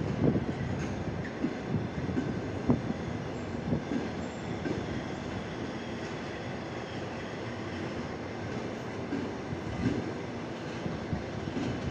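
Long-distance passenger train coaches rolling slowly past: a steady rumble with irregular knocks as the wheels cross rail joints and points, and a few brief faint squeals.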